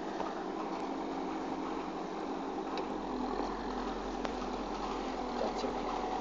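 Backhoe loader engine running steadily while the backhoe arm digs, with a few faint clicks.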